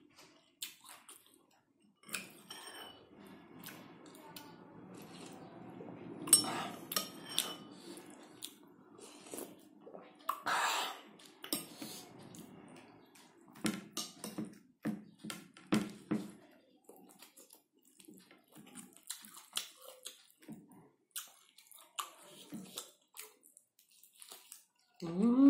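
Close-up eating sounds: chewing and lip smacking on boiled pork and rice eaten by hand, with scattered clinks of a spoon against a glass bowl. Near the end there is a short voiced sound that rises and falls in pitch.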